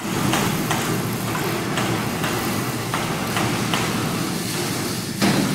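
Heavy machinery running with a steady low hum, with light, irregular clicks, as a welding column-and-boom manipulator's column is moved upright.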